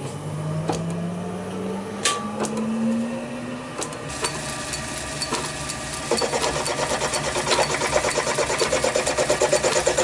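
Lorch AII toolroom lathe running with a steel shaft driven between centres by a drive dog. Its hum rises in pitch over the first few seconds as it comes up to speed. From about six seconds a fast, even mechanical clatter sets in and grows louder.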